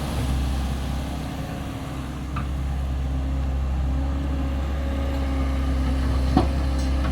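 Sany excavator's diesel engine running steadily with a low drone, with a light click about two and a half seconds in and a sharper knock near the end.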